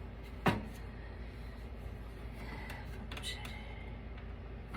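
A single sharp knock of a hard object about half a second in, then a few faint clicks of parts and tools being handled, over a steady low hum.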